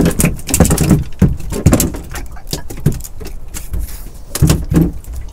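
Irregular clicks, knocks and rustling from handling fishing tackle in a small open boat, over a steady low rumble.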